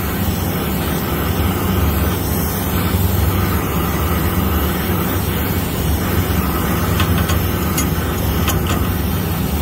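Brazing torch flame burning steadily as it heats the copper liquid line to solder in a new solenoid valve, over a steady low hum. A few light ticks near the end.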